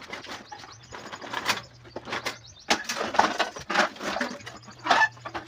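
Metal pots, lids and other household items clattering and scraping as they are shifted about, in irregular knocks, over a steady low hum.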